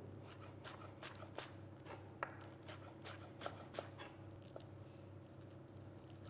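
Chef's knife shredding iceberg lettuce on a wooden chopping board: quick, faint chopping strokes, about three a second.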